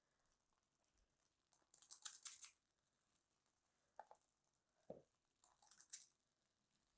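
Faint scraping and clicking of a metal spring-loaded disher scoop working stiff choux dough, with a cluster of scrapes about two seconds in and another near the end as the dough is released onto the waffle iron.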